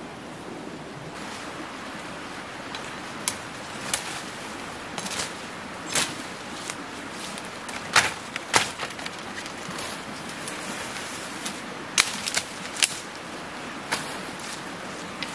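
Machete chopping into bamboo and brush stems: about ten sharp, irregularly spaced cracks over a steady rushing background.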